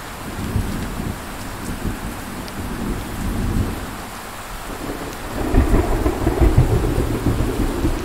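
Steady rain hissing with rolling thunder rumbling beneath it; the rumble swells loudest a little past halfway and stays loud to the end.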